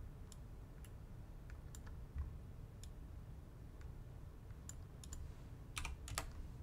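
Sparse computer mouse clicks and light keyboard taps over a faint low hum, with two louder clicks near the end.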